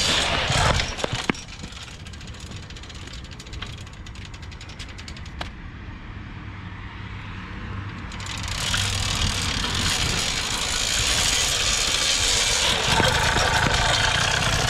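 Motorized bicycle's 80cc two-stroke engine being turned over as the bike is rolled to start it, with chain and freewheel ticking and a few clicks. About eight seconds in the engine catches and keeps running.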